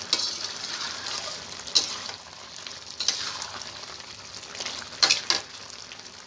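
Metal ladle stirring lau chingri (bottle gourd and prawn curry) in a brass kadai, clinking and scraping against the pan several times, loudest twice in quick succession near the end, over the steady sizzle of the simmering curry.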